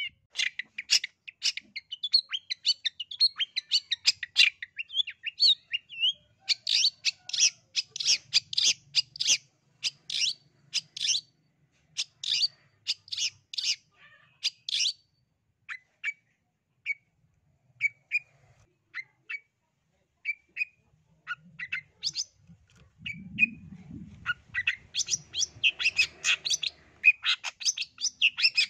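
Long-tailed shrike (cendet, East Javan type) singing vigorously: fast runs of short, sharp high notes, thinning to spaced single notes about halfway through and speeding up again near the end.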